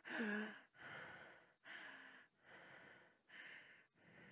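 A woman breathing hard in a string of audible, gasping breaths, about five of them a little under a second apart and growing fainter. The first breath carries a short moan that falls in pitch.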